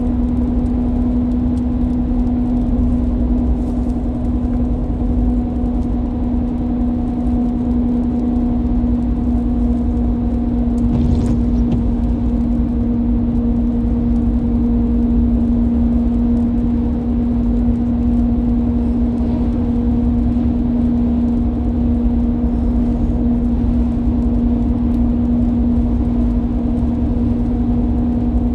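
Car cruising at highway speed, heard from inside the cabin: a steady low rumble of tyres and engine with a constant hum, and a brief swish about eleven seconds in.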